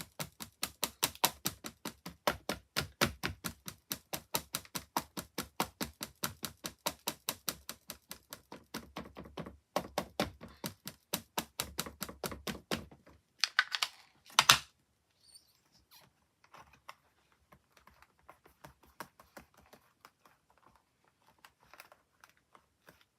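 An ink pad tapped quickly and evenly against a rubber stamp to ink it, about four taps a second for some thirteen seconds. A louder scuff follows, then a few faint scattered taps.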